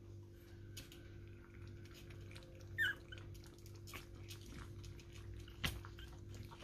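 Pomeranian puppies scrabbling on a tiled floor: many small claw clicks and pattering, with a short high squeak from a puppy about three seconds in and a sharp knock near the end. A steady low hum runs underneath.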